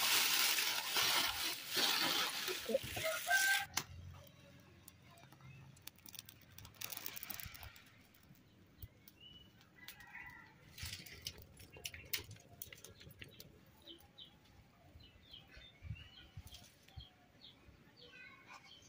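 Dry leaves and twigs rustling and crackling loudly as they are crammed into a clay stove, stopping abruptly after about four seconds. After that it is much quieter: small birds chirp, and the wood fire crackles now and then.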